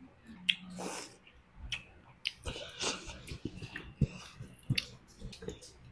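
Close-up eating sounds: a slurp of hotpot broth from a bowl about a second in, then chewing. Several sharp clicks of chopsticks and a spoon against a ceramic bowl are heard through it.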